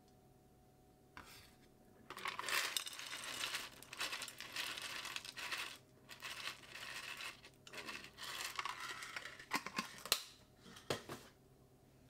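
Sweetcorn kernels shaken and scraped out of a plastic container into a glass dish: a rustling, crackly noise in several spells, with a few sharp taps near the end.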